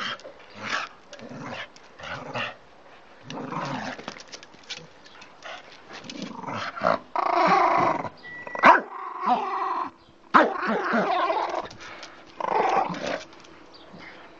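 Dog growling in repeated rough bouts while it grips and worries a plush teddy bear in play, with longer, louder growls around the middle.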